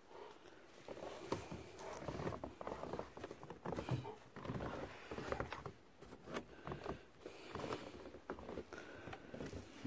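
American Akita moving about in snow at close range, stepping onto snowy deck steps and sniffing at a boot: soft, irregular crunches and rustles.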